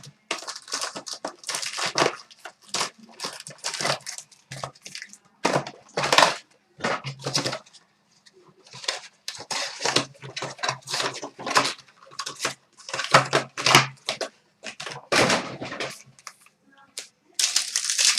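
Plastic wrap and card-pack wrappers crinkling and tearing in irregular bursts as boxes and packs of hockey trading cards are opened.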